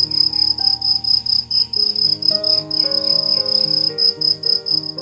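Cricket chirping: a high, rapidly pulsing trill that runs steadily, over soft background music.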